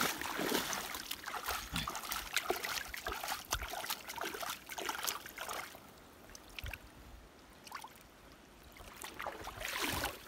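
Footsteps wading and splashing through shallow river water, irregular splashes for the first several seconds, then softer trickling and lapping as hands hold a fish in the current; the splashing picks up again near the end.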